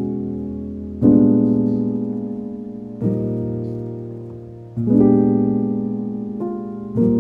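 Slow instrumental piano music: a new chord struck about every two seconds, each left to ring and fade away.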